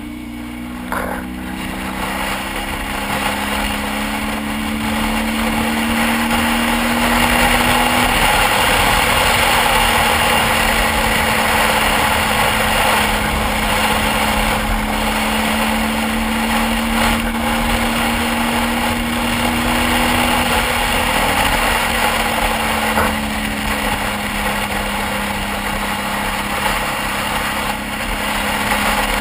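Motorcycle engine pulling up through the revs under steady wind noise for the first several seconds, then holding a steady cruise, and easing off about two-thirds of the way through. The wind rush is heard past the bike's windscreen.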